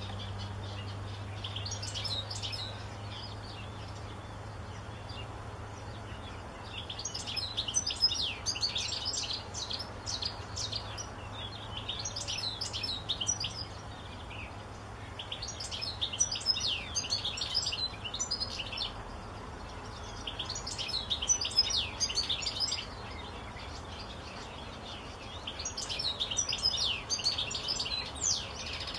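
European goldfinch singing: bouts of rapid, high twittering a few seconds long, about six of them with short pauses between.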